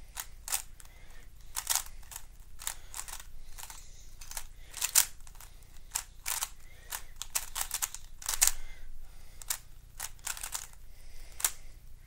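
YJ GuanLong 3x3 speedcube being turned rapidly by hand: a quick, irregular run of plastic clicks and clacks as the layers snap round, with sharper clacks about five seconds in and again a few seconds later.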